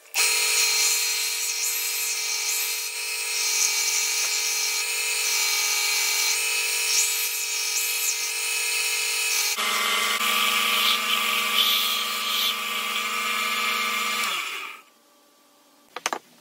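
Bench belt-and-disc sander running, a steady motor whine with the hiss of a wooden workpiece held against the abrasive belt. Near the end the motor is switched off and winds down, leaving near silence broken by a couple of clicks.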